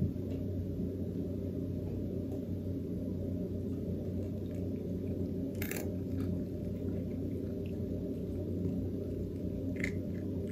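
A steady low hum, with two brief faint clicks, one about a third of the way through and one near the end.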